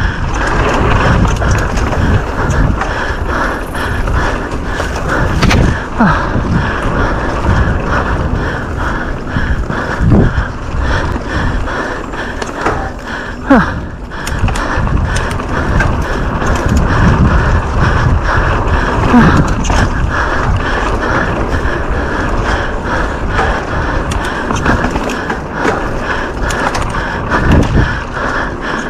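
Downhill mountain bike descending a rough trail: a continuous rattle of tyres and frame over dirt and rocks, with many small knocks.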